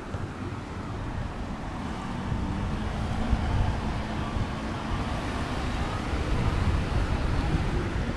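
Road traffic: a vehicle driving past, its noise swelling through the middle over a steady low rumble.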